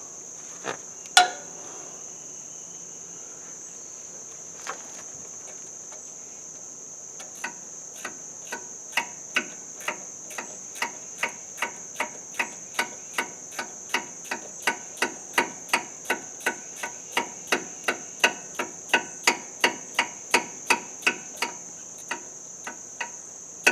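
Regular sharp metal clicks, about two to three a second for some fifteen seconds after a few scattered ones, from hand tools working a bolt on the tractor. A steady high chirring of crickets runs underneath.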